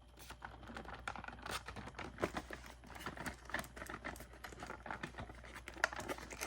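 Plastic packaging crinkling and rustling with small irregular clicks as a boxed toy is handled.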